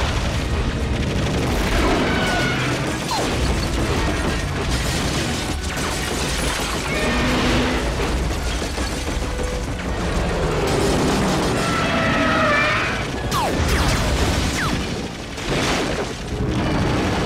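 Action-film sound mix of military helicopters' rotors and rapid machine-gun fire with deep rumbling booms, under orchestral score.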